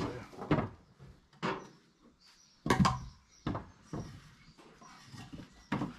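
Wooden blocks knocking against each other as they are set down and stacked: about five separate hollow knocks, the loudest about three seconds in.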